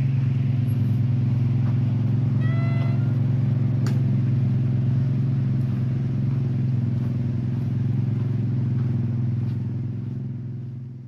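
Steady low rumble, fading out at the end, with a short high chirp a few seconds in.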